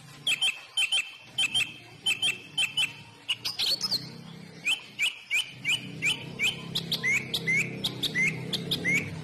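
A small bird chirping over and over, short high notes about two or three a second, the later ones sliding upward. A faint low steady hum runs underneath.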